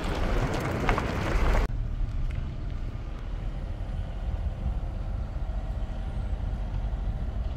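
A motor vehicle being driven, its engine and road noise a steady low rumble. For about the first second and a half a loud rushing hiss of wind lies over it, then it stops abruptly.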